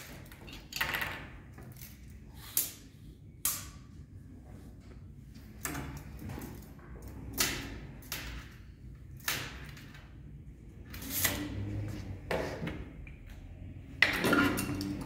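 Scattered clicks, taps and rustles of small hand tools being handled on a table: a felt marker uncapped, a tape measure drawn along a pipe and tools set back down. The loudest is a sharp knock about fourteen seconds in, as a tool is put down. A faint steady hum runs underneath.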